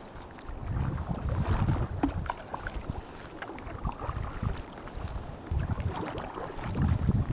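Double-bladed kayak paddle dipping into calm sea water, stroke after stroke, with splashes and drips, while wind rumbles on the microphone in uneven gusts.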